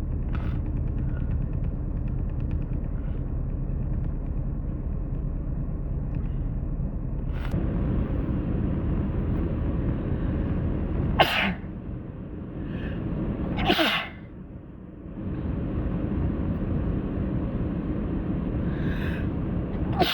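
A person sneezing, with sharp sudden sneezes about eleven and fourteen seconds in and another at the very end, over a steady low rumble.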